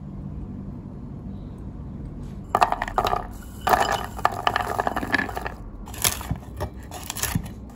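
Walnut halves dropping and tumbling onto a wooden cutting board, then a chef's knife chopping them on the board with dry crunching strokes. The clatter starts suddenly about two and a half seconds in, after a faint low hum.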